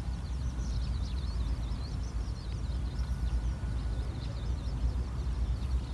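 Small birds twittering in quick, wavering chirps, over a steady low rumble of wind on the microphone.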